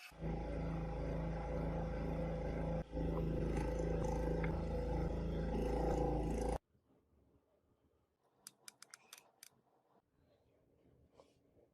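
A workshop machine running loudly and steadily with a low hum, with a brief dip about three seconds in, then cutting off suddenly after about six and a half seconds. A few light, sharp clicks follow in the quiet.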